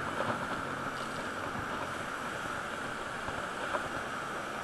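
Steady wind rush and road noise on a camera microphone while riding a bicycle along a city road, with a couple of faint ticks late on.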